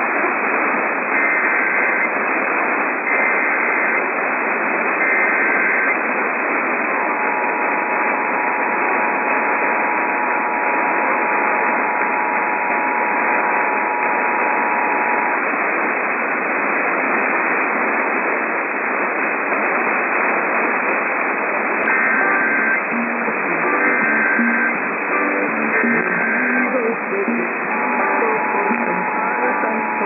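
Emergency Alert System test received on AM radio through heavy static. Three bursts of SAME header data tones are followed by the two-tone attention signal for about eight seconds, then only static where the spoken test message should be, a failed relay. Three short end-of-message data bursts follow, and a new two-tone attention signal starts near the end.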